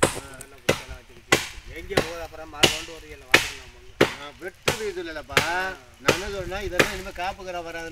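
Regular chopping strokes of a hand-held cutting blade into a coconut palm, about eleven sharp strokes, one every two-thirds of a second.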